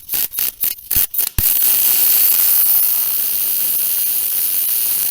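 Electric welding arc on the thin steel of a lawnmower deck: a few short stuttering bursts as the arc strikes, then a steady crackling hiss from about a second and a half in.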